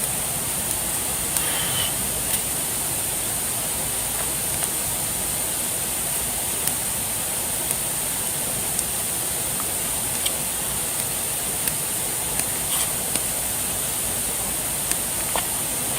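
Steady rushing of flowing water with a dozen or so sharp clicks and crackles scattered through it.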